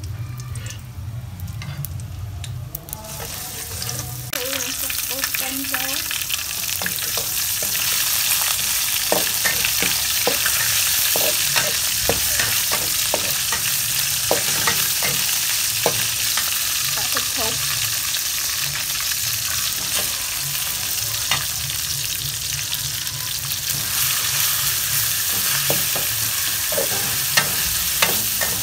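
Stir-fry sizzling in a metal wok: garlic frying in oil, then a louder, denser sizzle from about three seconds in as spring onions and minced pork go in. A metal spatula scrapes and clacks against the wok throughout.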